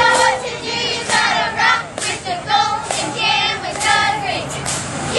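A group of children's high voices chanting together in short, repeated shouts, like a cheer.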